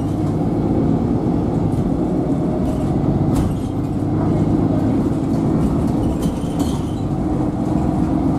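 Cabin noise of a MAN Lion's City 12C city bus under way: a steady low engine drone mixed with road and tyre noise, with a few faint clicks and rattles.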